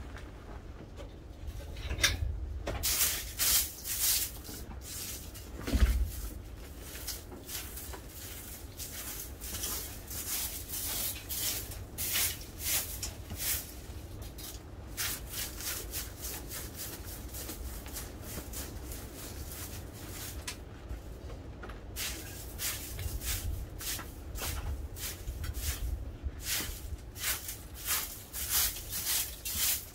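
Snow crunching in a long run of short crisp strokes, often about two a second, with a quieter stretch midway, over a low wind rumble on the microphone.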